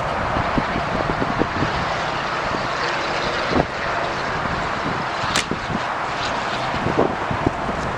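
Strong wind buffeting the camera's microphone: a steady rushing with frequent low thumps from the gusts. A single sharp click about five seconds in.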